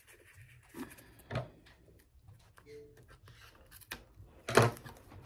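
Handling sounds of a taped card mailer being opened: scattered soft rubs and light clicks, with one louder, brief scrape near the end.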